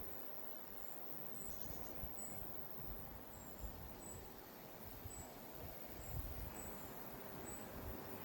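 Quiet countryside ambience: a thin, high chirp repeats about once a second over a low, steady rumble.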